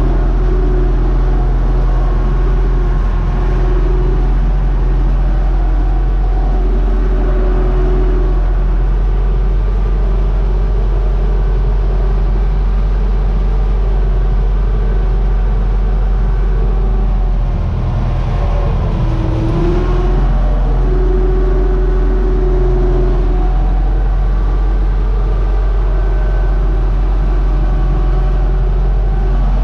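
UTB Universal U650 tractor's four-cylinder diesel engine running steadily under ploughing load, heard from inside the cab. About 18 seconds in, the engine note dips briefly and then returns.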